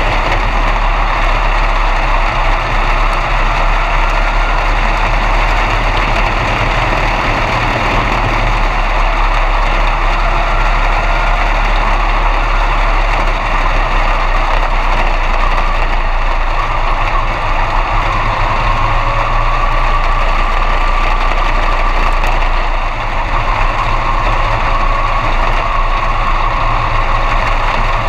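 B-Mod dirt-track race car's V8 engine running steadily at low revs, heard from inside the cockpit, with a faint whine that wavers in pitch.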